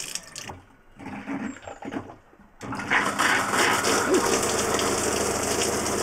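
Water running from a campervan kitchen tap. About two and a half seconds in, it gives way to a steady spray from the shower head, with the hum of the 12 V Shurflo Trailking 7 water pump running underneath to keep the freshly plumbed system pressurised.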